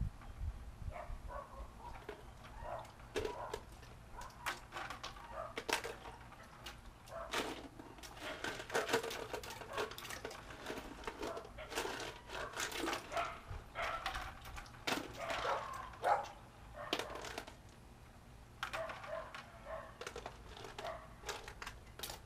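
Ice water poured from a bowl over a person again and again, splashing in repeated short bursts, amid many brief high yelps and whimpers.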